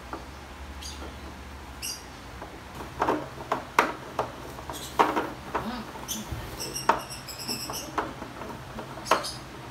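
Hard plastic slide parts knocking and clicking as they are handled and fitted together, a string of sharp knocks starting about three seconds in. A run of high, pulsing squeaks, plastic rubbing on plastic, comes about two-thirds of the way through.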